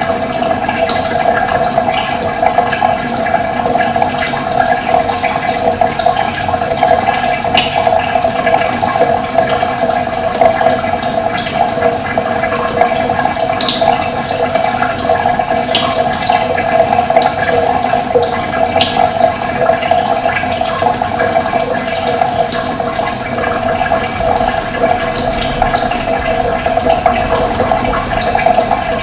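Running water flowing steadily, with short bird chirps scattered through it.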